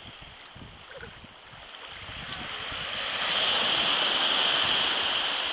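Small sea waves breaking and washing up a sandy shore in shallow water. The wash swells to its loudest a little after halfway, then starts to ease.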